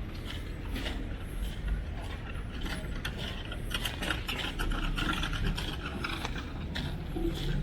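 Road-construction machinery at work: a low rumble with rapid metallic clicking and clattering over it.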